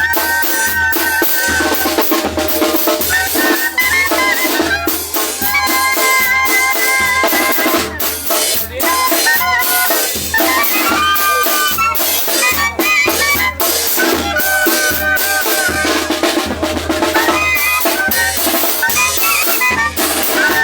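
Zacatecan tamborazo band playing: a bass drum (tambora) and snare keep a steady beat under a held, changing melody from the brass and reed instruments.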